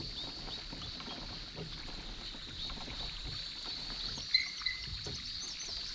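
Kayak drifting and paddling on still creek water: soft water and hull sounds, with a steady high hum in the background and a small click about four seconds in.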